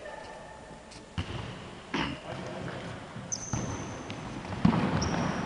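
Futsal ball being kicked on an indoor wooden court: sharp echoing thuds about a second in, at two seconds and again near the end, with a couple of short high shoe squeaks on the floor between them.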